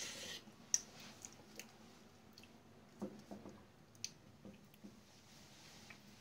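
Wooden spoon stirring thick cooking condensed-milk mixture in an aluminium pot: soft wet squishing with scattered light knocks and clicks of the spoon against the pot, the sharpest just under a second in.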